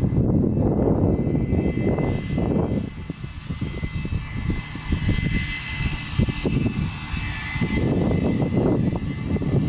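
Wind buffeting the microphone: a loud, uneven rumble that swells and dips in gusts, easing for a moment twice. A faint steady high tone sits behind it.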